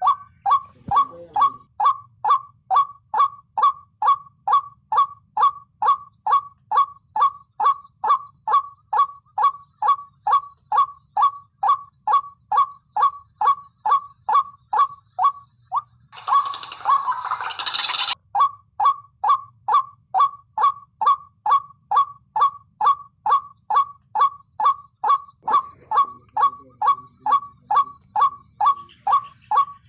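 White-breasted waterhen (ruak-ruak) call repeated over and over at an even pace, about two short notes a second. A louder noisy burst covers the calls for a couple of seconds about halfway through.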